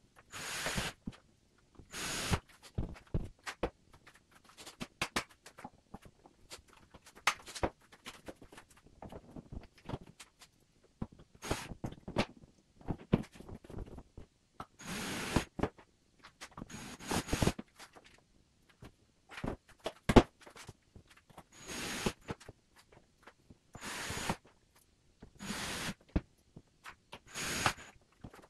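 Handling and tool noise from hanging kitchen wall cabinets: about ten short bursts of scraping or whirring noise, each under a second, some with a thin high whine, with scattered knocks and clicks between them.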